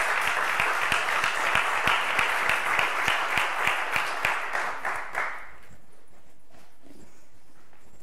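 Audience applauding, the clapping thinning out and stopping about five and a half seconds in.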